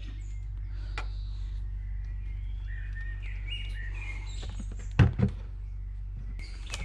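Birds chirping faintly in the background over a steady low hum. A light click comes about a second in, and two quick sharp knocks come about five seconds in, from hands working among the engine-bay parts.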